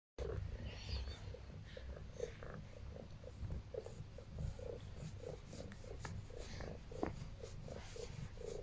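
Domestic cat purring close to the microphone: a steady low rumble with a soft pulse about three times a second, and a few faint clicks.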